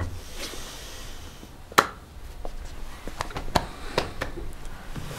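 Quiet room sound with a scattering of small, sharp clicks and taps, the loudest about two seconds in and several smaller ones a little over a second later.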